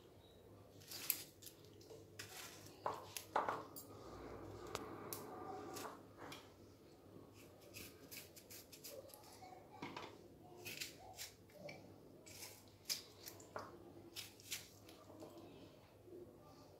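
Small kitchen knife cutting ripe tomatoes held in the hand into thick chunks: faint, irregular snips and clicks as the blade goes through the skin, with pieces dropping into a plastic bowl.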